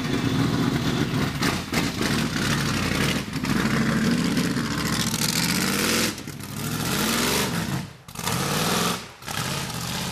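Lifted off-road truck's engine revving hard, its pitch rising and falling as it accelerates across dirt and climbs a small hill. The throttle drops off sharply a few times near the end.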